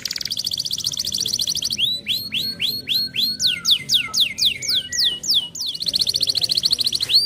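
Domestic canary singing: a very fast, high trill, then a slower run of sweeping downward whistles about four a second, then the fast trill again near the end.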